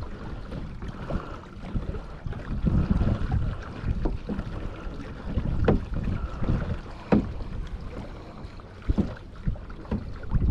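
Wind gusting on the microphone over water washing along the hull of a pedal-driven Hobie Mirage Pro Angler 14 kayak under way, with a few sharp knocks about halfway through and near the end.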